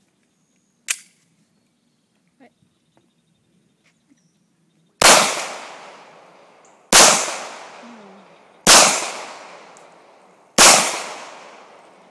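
Glock pistol fired four times, slow aimed shots about two seconds apart, each shot ringing out and dying away slowly. A single sharp click about a second in.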